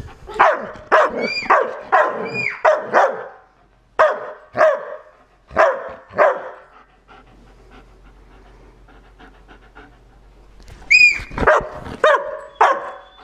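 German Shepherd barking in short runs: about six quick barks at the start, a few more around four to six seconds in, a pause, then another run near the end. These are the warning barks of a dog guarding the child beside it.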